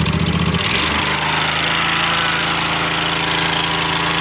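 24 hp Briggs & Stratton engine on a Gravely commercial zero-turn mower, just started after an engine swap, running unevenly for about a second before settling into a steady run.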